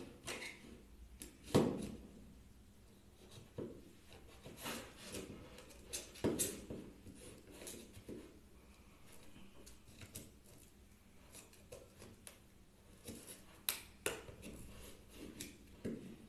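A knife blade prying and scraping along the edge of a Xiaomi Redmi 3S Prime phone's back cover, with irregular scrapes and small clicks as the cover is worked loose; the loudest strokes come about a second and a half and six seconds in.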